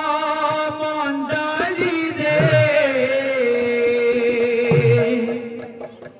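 Male lead kirtan singer singing long, wavering held notes into a microphone, with a few low drum strokes underneath. The singing drops away just before the end.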